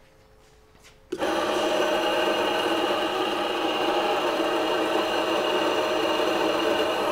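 Electric espresso grinder with a built-in dosing scale, switched on about a second in, running steadily with a motor whine as it grinds coffee beans, set fine for espresso, into a metal dosing cup.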